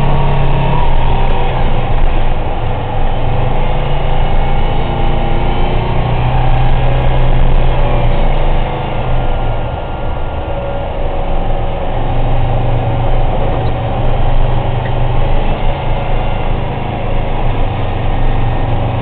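Military truck's engine running steadily at road speed, heard from inside the cab, over a constant rush of tyre and road noise.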